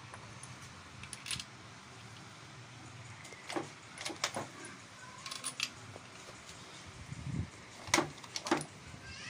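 Scattered metal clinks and taps of engine parts being handled and fitted on a bare Nissan MR18 engine block, the loudest about eight seconds in.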